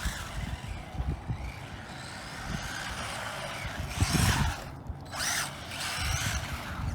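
Brushless electric motor of an RC buggy whining up and down in short bursts of throttle, with louder bursts near the middle and end as the rear tyres spin on the slippery surface.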